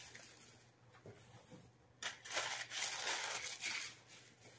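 Packaging being torn open and crinkled by hand: a burst of rustling that starts about two seconds in and lasts about two seconds.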